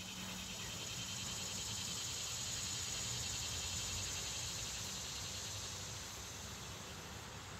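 A steady outdoor insect chorus, a high pulsing buzz that swells slightly in the middle and eases towards the end, over a faint low rumble.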